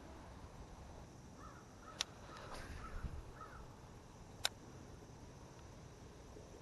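A bird calling faintly: four or five short rising-and-falling calls in the first half, with two sharp clicks, one about two seconds in and a louder one a little past the middle.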